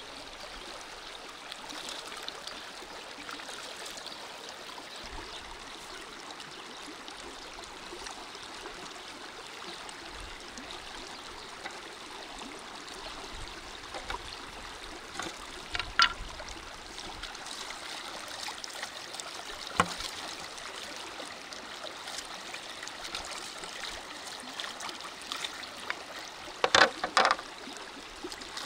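Shallow stream running steadily over rocks. A few sharp knocks come past the halfway point and a quick cluster near the end as a spatula and tray are handled at the water's edge.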